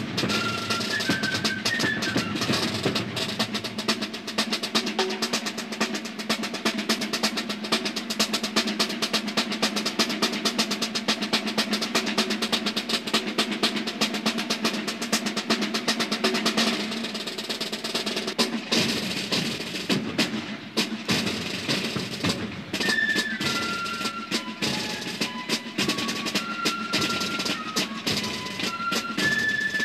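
Marching band of flute and drums: snare drums play a fast rattling cadence with rolls and a bass drum beneath. A high flute melody of short notes is heard at the start and comes back in about three quarters of the way through.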